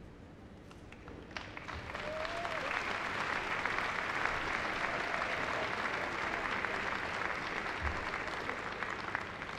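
Large audience applauding, the clapping swelling about a second in and then holding steady.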